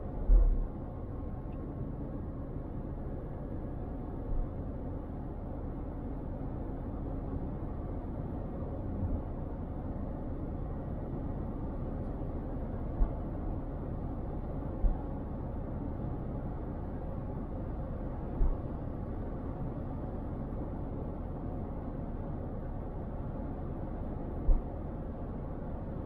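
Steady low road and engine noise from a car being driven, heard through a dash cam, with about six short low thumps spread through it.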